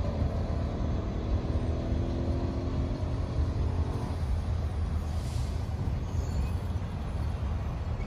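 Road vehicle noise: a low steady rumble, with a car driving over the railroad crossing near the end. A fainter pitched hum stops about four seconds in.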